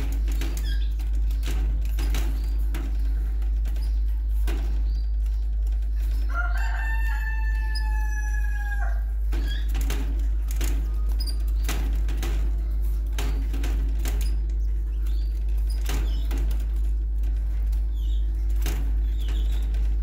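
Hand-fed canary chicks begging with many short, sharp cheeps over a steady low hum. About six seconds in, one long pitched call is held for about two and a half seconds, falling slightly at the end.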